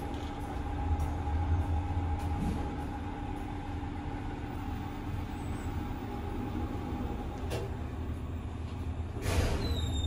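Passenger elevator car in motion: a low rumble of the ride with a steady drive whine. The whine stops with a click about three-quarters of the way through, and a short burst of noise follows near the end.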